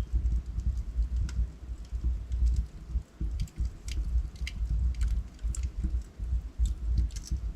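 Wood fire burning in a fireplace: irregular sharp crackles and pops from the logs over a low, uneven rumble of the flames.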